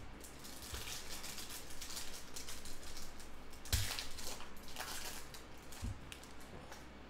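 Foil trading-card pack wrapper crinkling as it is handled and torn open, with a louder rip and knock about four seconds in, then the cards slid out.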